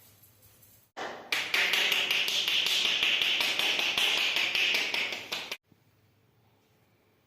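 Rapid rhythmic hand tapping of a percussive massage, many quick strikes a second. It starts abruptly about a second in and cuts off suddenly after about four and a half seconds.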